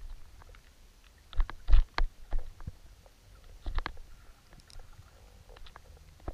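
Scattered sharp clicks and dull knocks heard underwater, in clusters about a second and a half and about four seconds in, with a low rumble of water against the camera housing between them.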